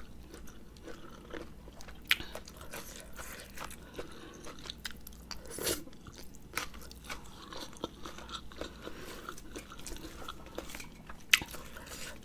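Close-up chewing and mouth sounds of someone eating a spicy rice-noodle salad: a steady run of small wet clicks and smacks, with a few sharper ones about two seconds in, near the middle and near the end.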